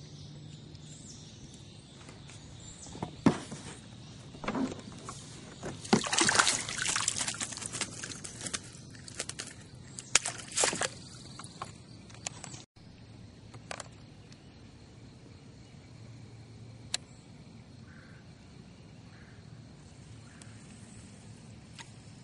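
Water splashing and sloshing against a small boat in irregular bursts, busiest between about three and twelve seconds in. After that only a steady insect buzz remains.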